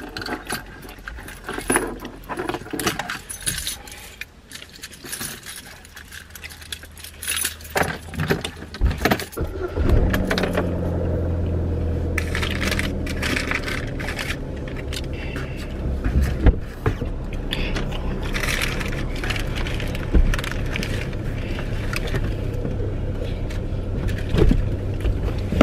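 Crinkling of paper sandwich wrappers and small clicks of handling food, over a steady low hum from the car that grows louder about ten seconds in.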